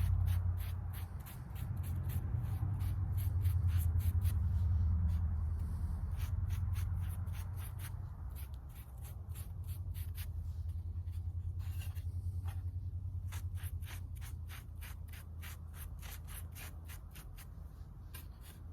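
Foam brush rubbing sealer onto the end grain of a Southern Yellow Pine board, over a low rumble that swells and fades. A fast run of faint high ticks goes on throughout.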